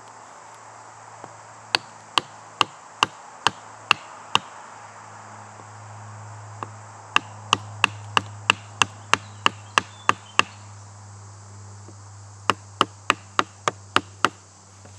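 A knife being battoned with a wooden stick to split the end of a green stick: sharp wooden knocks in three runs of seven to ten strikes, two to three a second. A steady insect buzz runs underneath.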